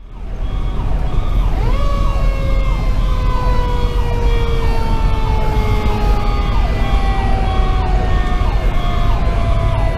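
Fire engine sirens running: an electronic Sho-Me Powercall siren yelping in quick repeated sweeps, a little faster than one a second, over a Federal Q2B mechanical siren that winds up about two seconds in and then slowly coasts down in pitch. Underneath is the low rumble of the Pierce Velocity's Detroit Series 60 diesel.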